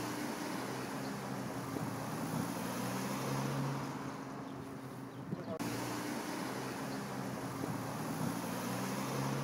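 Steady low hum of an idling truck engine over city street traffic.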